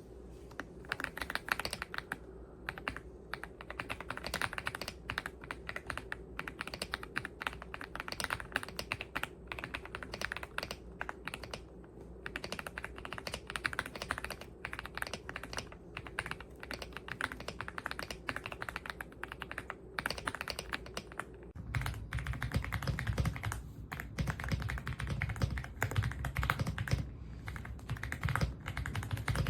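Fast, continuous typing on an EPOMAKER x Aula F75 gasket-mount mechanical keyboard with Ice Vein switches, keys clacking in quick rolls. About two-thirds of the way through, the keystrokes turn noticeably deeper and fuller.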